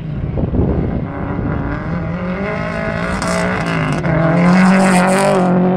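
Rally car engine running hard at high revs as the car comes past close by, growing louder to its loudest about four seconds in, then falling away sharply near the end.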